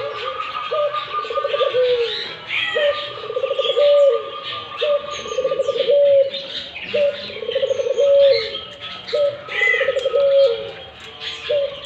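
Puter (Barbary dove) cooing over and over, a low phrase repeated about every second and a half, with other small birds chirping higher in the background.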